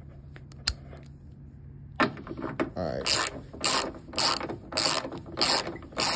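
Hand ratchet wrench cranked back and forth to loosen a bolt by hand, each return stroke giving a quick run of pawl clicks. The strokes start about two seconds in and repeat roughly every half second or so.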